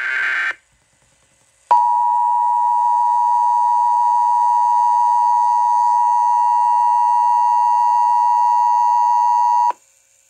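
NOAA Weather Radio warning alarm tone: a single loud, steady 1050 Hz tone sounding for about eight seconds, starting nearly two seconds in and cutting off sharply. It is the alert that comes before a severe thunderstorm warning. Just before it, the tail of the coded data burst that heads the alert ends in the first half second.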